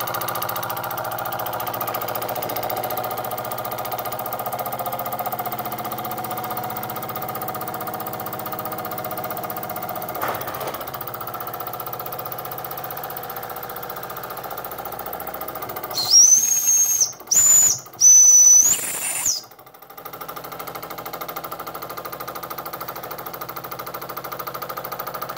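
Jensen Model 70 live-steam stationary engine running fast with a rapid, steady mechanical chuff, though not at full speed. About sixteen seconds in, its steam whistle sounds three shrill blasts within about three seconds, the middle one short; then the engine keeps running, a little quieter.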